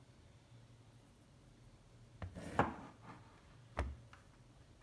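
A hard plastic tool case handled on a tabletop: a click and a short scrape a little past halfway, then a single sharp knock near the end as the case is set down.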